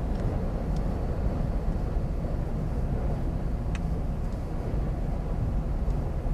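Steady low rumble of wind noise outdoors under a tornadic storm, with a faint brief high chirp a little under four seconds in.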